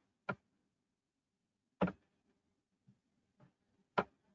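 Clicking at a computer while setting up screen sharing: three sharp clicks about a second and a half apart, with two fainter ones between the last two, over an otherwise quiet room.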